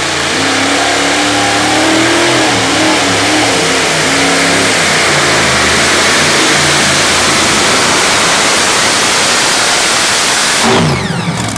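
A modified pulling tractor's supercharged engines at full throttle as it drags a weight-transfer sled: a loud, steady roar. Near the end the revs fall away sharply as the engines are shut off.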